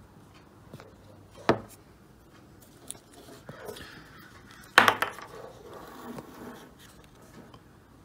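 Sharp clicks and light clatter of small hard parts being handled and set down. There is one loud click about one and a half seconds in, and a louder clack with a short rattle near five seconds, with a few faint ticks and rustles between.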